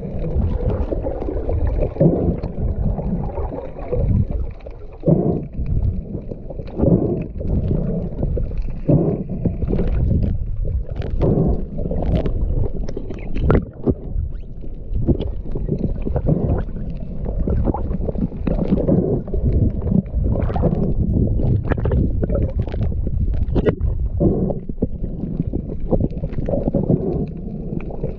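Water noise picked up by a submerged camera: a steady, muffled low rumble and gurgling, with scattered sharp clicks and knocks.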